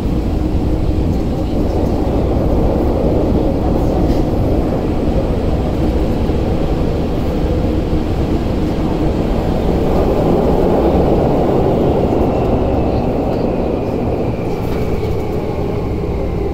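Tokyu 8500 series subway train heard from inside the carriage: the steady rumble of the train running through a tunnel. Over the last few seconds a whine falls steadily in pitch as the train slows into a station.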